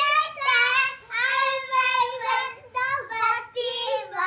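A child singing unaccompanied in short, high-pitched phrases.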